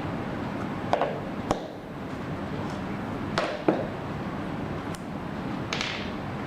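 A few short clicks and knocks from handling a phone, power bank and cable connectors, over a steady background rumble and hiss.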